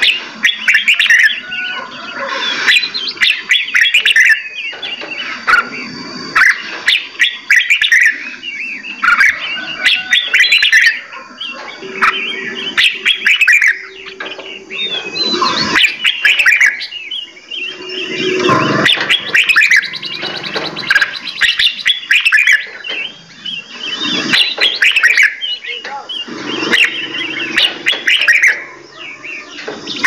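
A mixed flock of caged songbirds in an aviary chirping and singing over one another, a dense, continuous stream of short, quick calls and trills.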